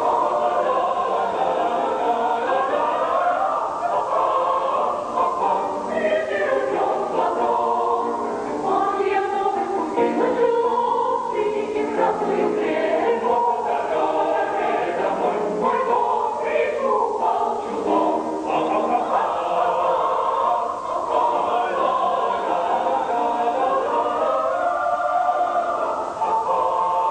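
Mixed choir of girls' and young men's voices singing together, several pitches at once.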